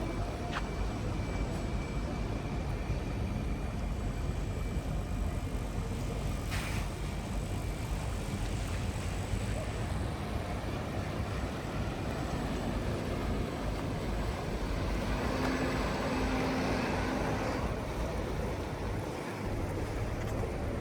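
Steady low rumble of motor traffic, with a sharp knock about six and a half seconds in. A louder engine, perhaps a passing canal boat, comes through with a low hum between about fifteen and eighteen seconds in.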